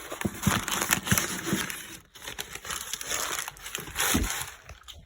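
Packaging being handled and crinkled, an irregular rustle with small clicks and knocks that pauses briefly about two seconds in.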